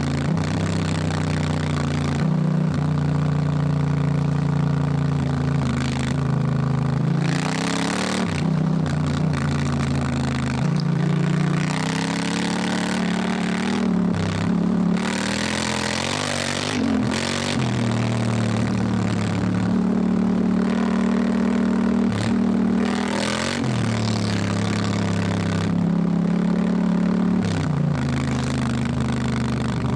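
Honda Africa Twin's parallel-twin engine under way, its note climbing and dropping every few seconds as the rider works the throttle and shifts gears, with short bursts of wind and road noise.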